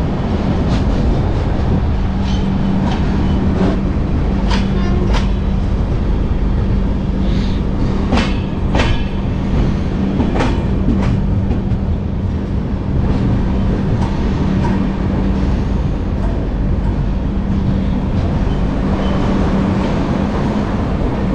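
Express passenger train running on the track: a steady rumble and hum, with scattered sharp clacks of the wheels over rail joints.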